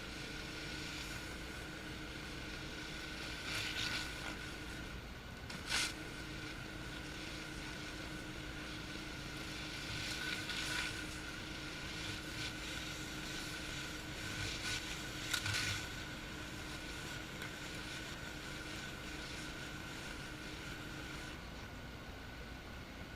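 Honda-powered direct-drive pressure washer running steadily while a surface cleaner sprays concrete, with a constant whine and a hiss of water. Several times the hiss swells briefly and falls back.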